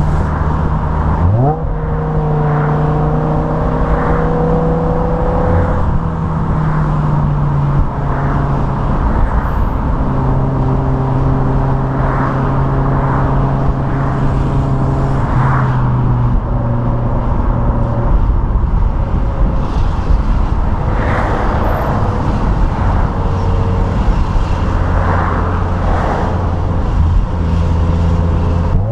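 BMW M5 E61's 5.0-litre V10 exhaust through the standard rear silencers, heard close up from the back of the car while it drives in traffic at low revs. The revs jump sharply once about a second and a half in, climb gently for a few seconds, then hold steady, over road and wind noise.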